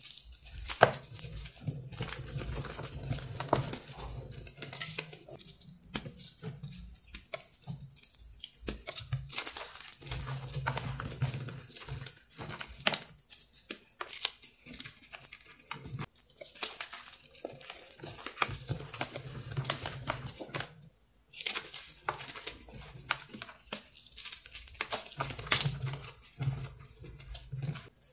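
Hands crushing and crumbling dry, powdery chalk blocks: a dense crackle of crunching and crumbling, broken by a few short pauses.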